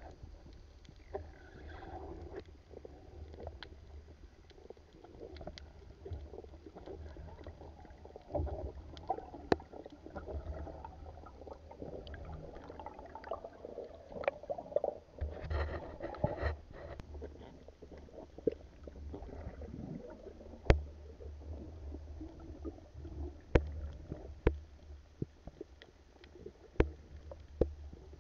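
Underwater sound heard through a camera's waterproof housing: a muffled low rumble of moving water, with bubbling near the middle and scattered sharp clicks.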